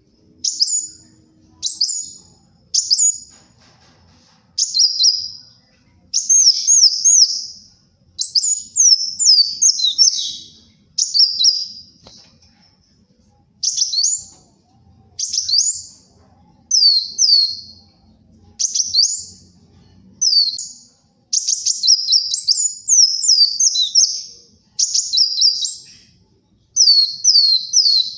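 Kolibri wulung sunbird singing energetically: bursts of rapid, high, thin chirps made of quick downward sweeps, in short phrases repeated every second or two with brief pauses between.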